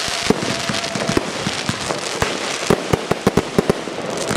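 Aerial fireworks display: shells bursting with sharp bangs over a continuous crackle of glittering stars. There is a quick run of about ten bangs from about two and a half to four seconds in.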